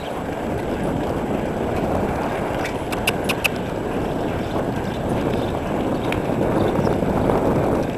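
Steady rushing noise of a bicycle ridden along a paved road, wind and tyre noise together, with a few light clicks about three seconds in.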